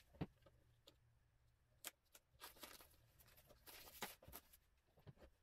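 Faint rustling of white cotton gloves being pulled onto the hands, with a soft knock at the start and a few light ticks and scrapes.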